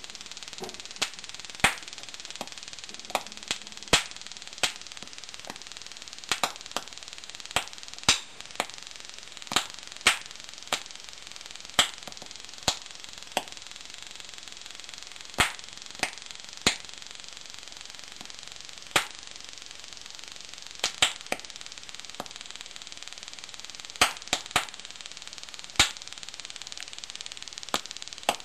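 Oxyhydrogen (HHO) gas from a water electrolysis cell being set off by a stun gun's spark: sharp pops at irregular intervals, about one to two a second, some in quick pairs, over a steady faint hiss.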